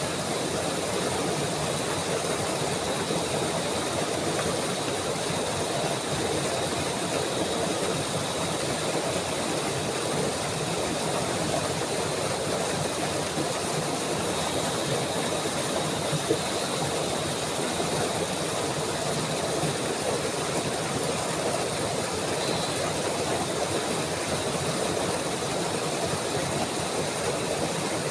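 Steady, unbroken rush of flowing water, with a faint high steady tone above it.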